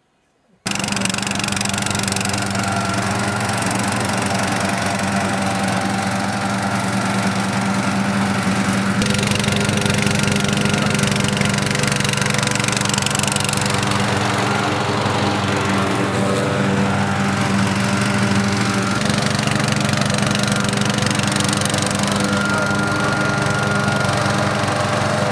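Ride-on lawn tractor engine running steadily, starting abruptly just after the start, with its tone shifting suddenly twice, about 9 and 19 seconds in.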